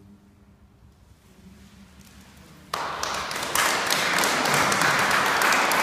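The last traces of a held chord from a male vocal quartet fade away, then an audience breaks into applause about halfway through, growing louder a second later.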